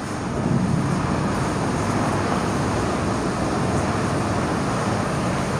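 Steady rushing, rumbling background noise that swells in just after the start and then holds level.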